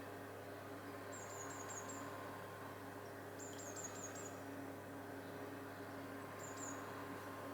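A small bird giving high, thin chirps in three short quick runs: four or five notes about a second in, five more around the middle, and two near the end, over a steady low hum.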